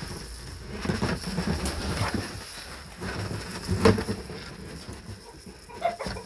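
Sunflower seeds being scattered from a bag for chickens, falling in irregular rustling bursts with handling knocks. The loudest is a sharp knock about four seconds in.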